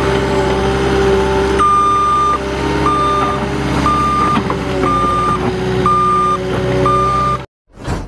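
Caterpillar 289D compact track loader's diesel engine running steadily while its reversing alarm beeps about once a second, six beeps starting about one and a half seconds in. The sound cuts off suddenly near the end.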